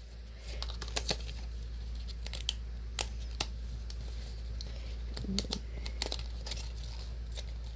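Paper being handled and worked with tape and glue: scattered small clicks, rustles and crinkles of a paper model being assembled, over a steady low hum.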